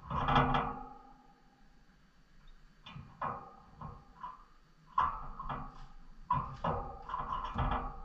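Irregular knocks and rattles from a wire birdcage, several with a short ringing, as small birds hop and land on the bars and perches. The loudest knock comes at the very start, and a busier cluster follows in the second half.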